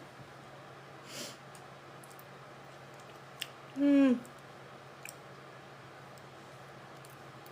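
A few small clicks and a soft breath, then one short hummed vocal sound from a person about halfway through, dropping in pitch at its end.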